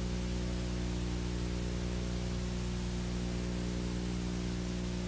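Steady electrical hum with a stack of overtones under a constant tape hiss, the background noise of an old videotape after the recorded scene ends.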